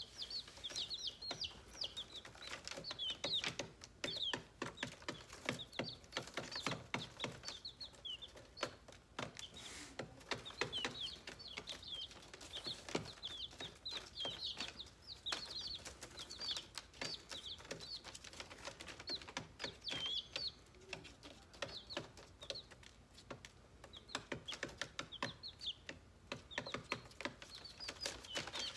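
A brood of baby chicks peeping steadily: many short, high peeps overlapping one another, with scattered light taps and rustling underneath.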